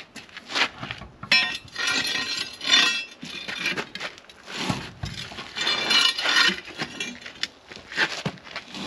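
Metal hand tools and wheel nuts clinking and rattling against the muck spreader's steel wheel hub as the wheel is refitted, in irregular bursts of clinks with a brief ring.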